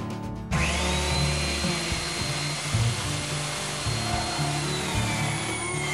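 Electric hand drill starting up about half a second in and running steadily as it bores a starter hole through a wooden board. Its motor whine drops in pitch near the end. Background guitar music plays underneath.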